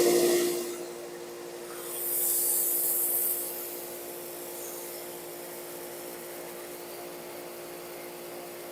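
Kärcher K2300PS electric pressure washer running with a steady hum while its pressure is checked on the turbo nozzle. It is loudest in the first half-second. A loud hiss of spray comes from about two to three and a half seconds in.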